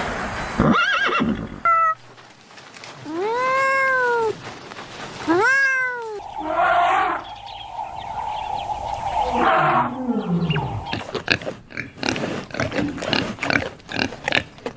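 A string of animal calls from different clips: a short rising cry, two drawn-out cries that rise and then fall, a long steady call, and a few falling glides. A quick run of clicks or knocks follows near the end.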